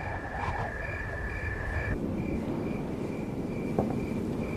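Night-time insect chorus: a steady high trill that stops about two seconds in, and a short high chirp repeating two to three times a second, over a low background rumble.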